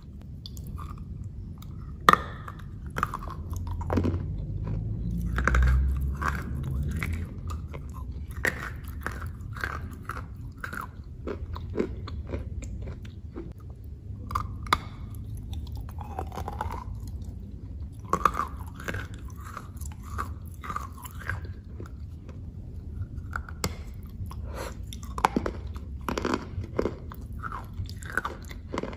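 Close-miked chewing and biting of a pastry coated in chocolate paste: irregular crisp crunches and clicks with chewing in between.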